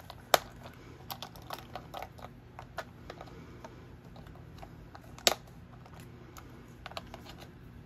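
Mini gel pens being pressed into the snap-in slots of their clear plastic storage case: a run of light plastic clicks and rattles, with two sharper snaps, one just after the start and one about five seconds in.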